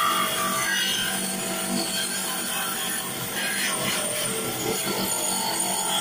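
Bench grinder running with its polishing wheel rubbing steadily against a Honda engine side cover, buffing the metal to take out scratches.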